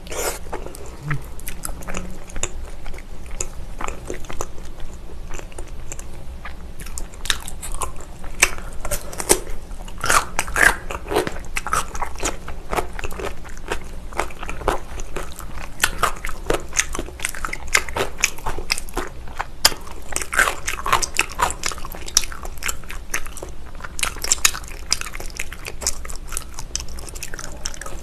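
A person chewing and biting spicy braised beef feet, with wet, sticky mouth clicks and bits of crunching coming thick and irregular throughout.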